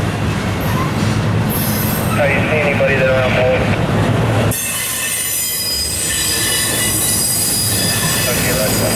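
Freight train passing: a low diesel locomotive rumble with squealing wheels, which changes abruptly about halfway through to the high-pitched, many-toned squeal of freight car wheels on the rails.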